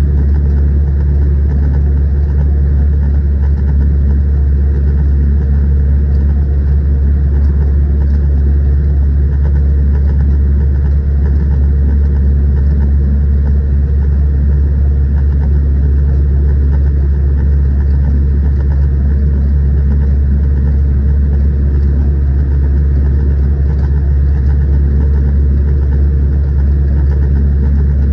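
Zetor 6211 tractor's four-cylinder diesel engine running at steady revs while driving, a constant loud low drone with no change in pitch.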